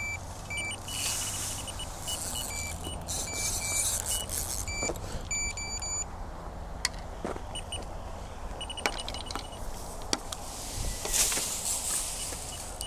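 A spinning reel whirring and ticking as a hooked fish is played, with repeated short electronic beeps from a bite alarm on a second rod. There are scattered sharp clicks and a few brief bursts of rustling hiss.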